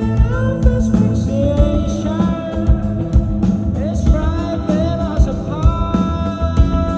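Rock band playing live: steady drum hits and bass under electric guitar, with a sung melody that bends and holds its notes.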